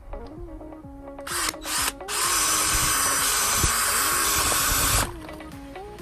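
18-volt cordless drill spinning up in two short bursts, then running steadily for about three seconds before stopping abruptly, drilling into a rugged smartphone through its battery. Background music plays underneath.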